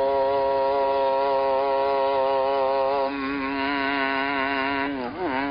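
A voice chanting one long held note, dropping to a slightly lower, wavering note about three seconds in, with a brief dip in pitch near the end.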